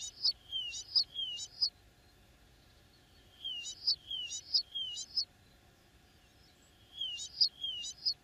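A small songbird singing in three short phrases a few seconds apart. Each phrase repeats a two-note figure, a falling note followed by a higher one, three or four times.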